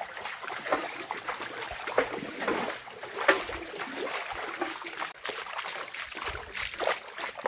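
Water splashing and sloshing in irregular bursts, with a trickling stream-like wash between them.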